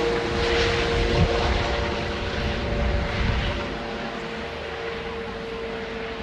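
Helicopter flying overhead: steady rotor and engine noise with a steady whine, growing a little fainter in the second half.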